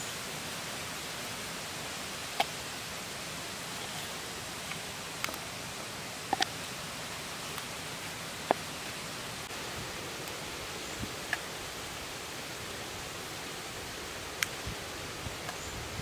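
Large knife cutting through raw chicken on a wooden chopping board, giving a handful of sharp, irregular knocks as the blade strikes the board. The knocks sit over a steady hiss of background noise.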